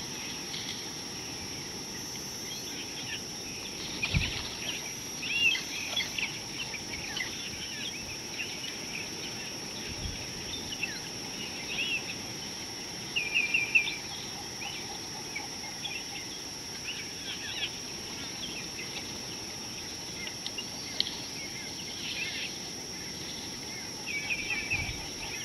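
Wild birds chirping and calling from the bush, with a quick run of about four notes twice, over a steady hiss and a constant high-pitched whine.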